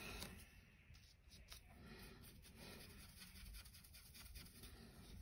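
Faint scratchy ticks of a small Army Painter dry brush being flicked over a miniature, close to near silence.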